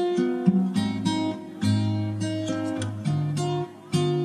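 Background music: an acoustic guitar picking a melody of plucked notes.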